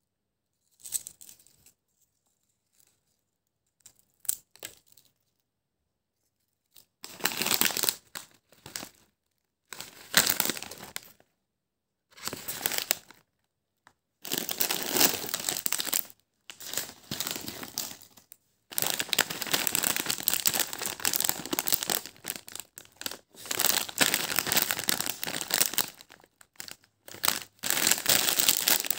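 Crinkly plastic snack packets being handled and crumpled: a few quiet seconds, then rustling in short bursts that becomes almost continuous in the second half.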